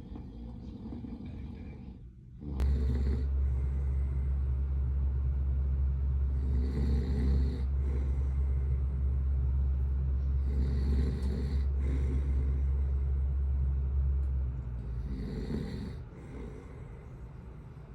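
A man snoring, one snore roughly every four seconds. A loud steady low rumble starts suddenly about two and a half seconds in and dies away near the end.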